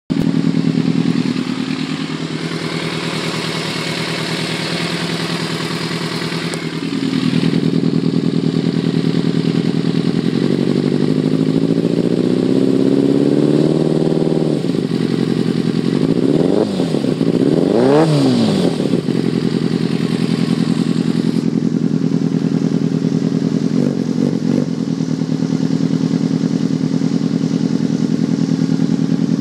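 An engine idling, revved slowly up and dropped back about halfway through, then blipped quickly twice before settling back to a steady idle.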